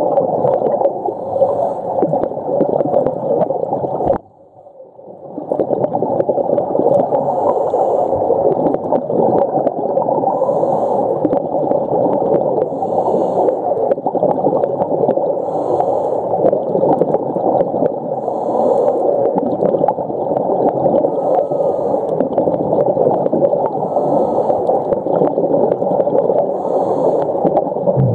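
Muffled underwater water noise, a steady gurgling rush, cutting out briefly about four seconds in and then returning.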